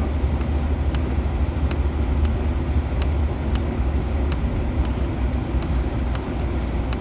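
Steady low rumble of a pickup truck driving, heard from inside the cab, with a few faint scattered clicks.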